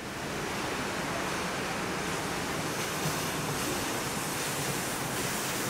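Steady rain falling, heard as an even hiss with no break.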